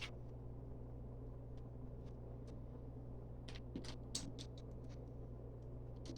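Plastic LEGO pieces being handled and fitted together: a few faint isolated clicks, then a cluster of sharper clicks about three and a half seconds in, over a steady low hum.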